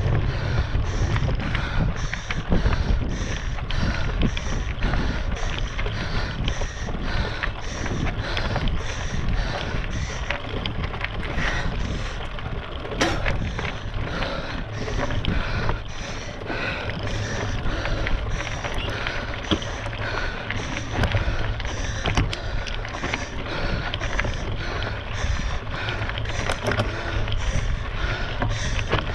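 Footsteps of a runner climbing a trail, in a steady rhythm of about two to three a second, with wind rumbling on a body-worn action camera's microphone.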